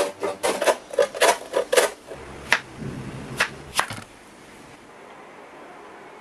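Cauliflower rubbed against a handheld flat metal grater on a wooden tray, a quick run of rasping strokes about four a second. Then a few single sharp knife strikes on a wooden cutting board as a red onion is sliced.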